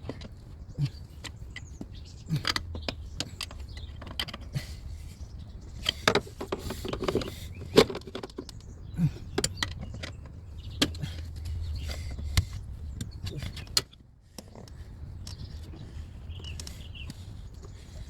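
Irregular clicks, knocks and light rattles of hand tools and engine-bay parts being handled while a turbo boost pipe is worked loose, over a low steady rumble that stops near the end.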